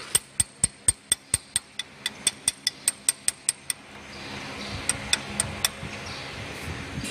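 A fast, even run of sharp metallic clicks, about four a second for nearly four seconds, then a few more about five seconds in: the press bar mechanism of a hinge joint fence machine being adjusted by hand.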